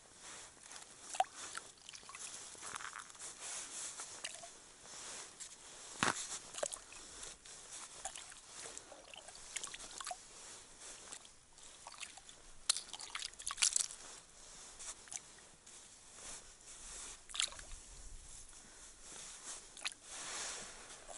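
Small roach and bream being released by hand back down an ice-fishing hole: light splashes and sloshing of water in the hole, with crunching of snow and ice and irregular sharp clicks and knocks, the loudest about six seconds in.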